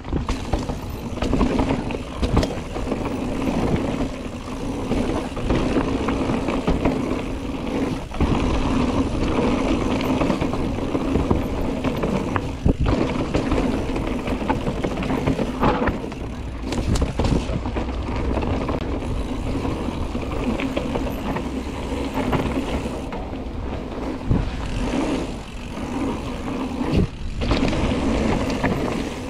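Mountain bike ridden down a rough downhill trail: continuous tyre and trail noise with a steady low hum, and scattered knocks and rattles as the bike hits bumps.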